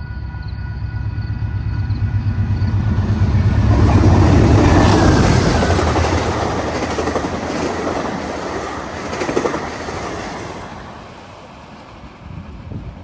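Freight train with diesel locomotives passing close by: a low engine rumble and the clatter of wheels over rail joints swell to a peak about four to five seconds in, then fade away.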